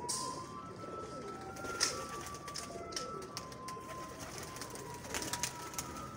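Domestic pigeons cooing, with a sharp click about two seconds in and a few more clicks near the end.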